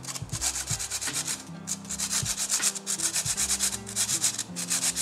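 A lime rubbed back and forth on a handheld rasp grater, zesting its peel. The scraping strokes come quickly and repeat steadily.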